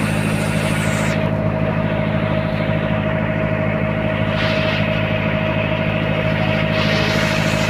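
The engine of a small wooden boat running steadily underway, a constant drone with a steady higher hum over it, and water rushing along the hull from the wake.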